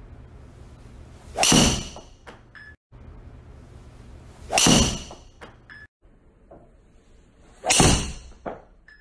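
Golf driver striking a ball off a hitting mat, three separate shots about three seconds apart, each a sharp crack that dies away within half a second. A faint short ping follows about a second after each shot.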